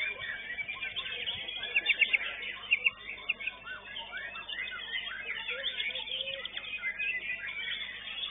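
White-rumped shama (murai batu) singing a fast, varied song of whistles, trills and chattering notes, with a burst of rapid sharp notes about two seconds in, the loudest part.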